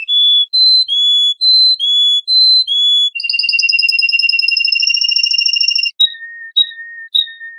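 Songbird singing: a run of clear whistled notes alternating between two pitches, then a long, even trill of about three seconds, then short, lower notes near the end.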